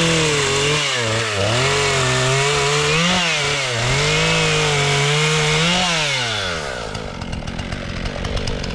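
Chainsaw running at high revs while cutting firewood from a fallen tree, the engine note dipping briefly several times. About six seconds in the revs fall away to a rough, lower idle.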